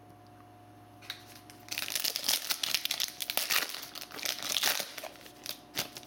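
Foil wrapper of a Panini Phoenix football card pack being crinkled and torn open by hand. It sets in about two seconds in as quick, irregular crackles.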